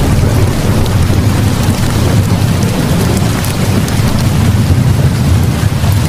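Steady rain with a deep, continuous rumble underneath and scattered light crackles, unchanging throughout.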